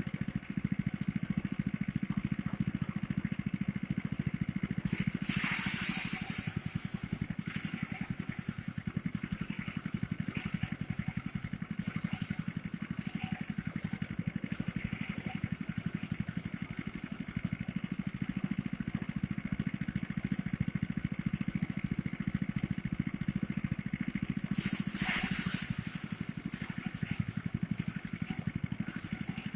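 Engine-driven rice thresher running steadily with a low engine hum. Twice, about five seconds in and again near the end, a brief loud hissing rush rises over it.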